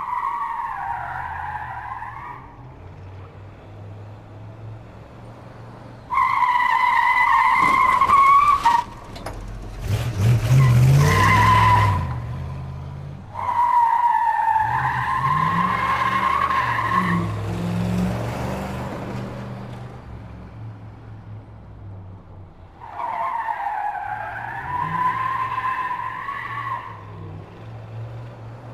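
Car engine running, with repeated tyre squeals as the car skids: five squeals, each lasting two to four seconds and wavering slightly in pitch. A harsher, noisier skid comes about ten seconds in.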